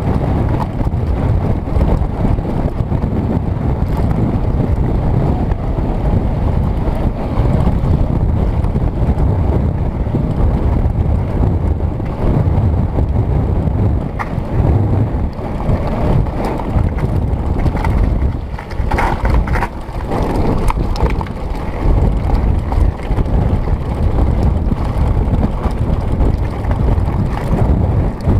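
Heavy wind buffeting on an action camera's microphone, mixed with the rattle and crunch of a mountain bike's tyres and frame over a loose gravel track at speed. It eases briefly about two-thirds of the way through.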